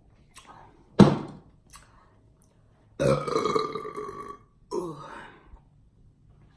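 A woman burping three times: a short, sharp burp about a second in, the loudest of the three, then a long, drawn-out pitched burp of about a second and a half, followed closely by a shorter one that falls in pitch.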